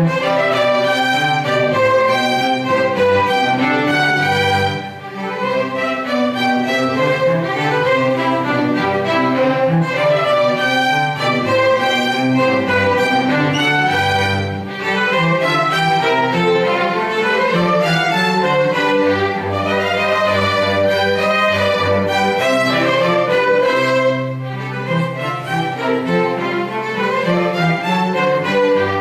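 Live string ensemble playing: violins and cello bowing a continuous piece, with the sound dipping briefly about 5, 15 and 24 seconds in.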